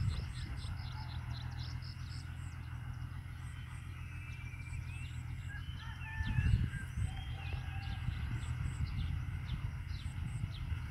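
Small birds chirping in quick repeated high notes, with a few sweeping whistled calls in the middle, over a steady low rumble. A brief louder low thump comes about six seconds in.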